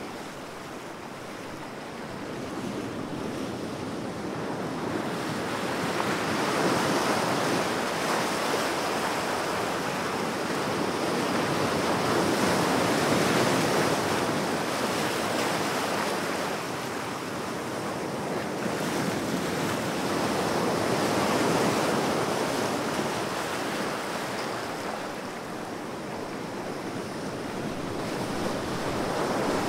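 Ocean surf: waves breaking and washing in as a steady rush, swelling and easing about every six to eight seconds.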